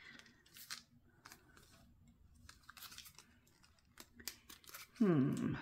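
Faint clicks and rustles of fingers working open a small cardboard sticker box. A short vocal sound near the end.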